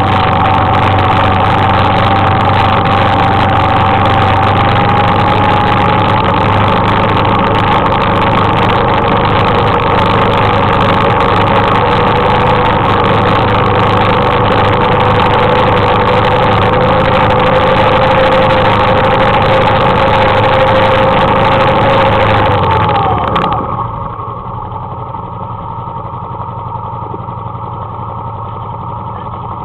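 Suzuki KingQuad ATV engine running steadily under load while towing a skier, its pitch rising slightly. About 23 seconds in the throttle is closed and the engine drops quickly to a quieter idle.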